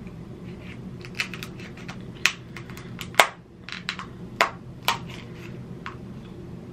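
Kitchen scissors cutting into the hard shell of a cooked king crab claw, giving a series of sharp cracks and snips. The loudest crack comes about three seconds in, as the thick shell resists the blades.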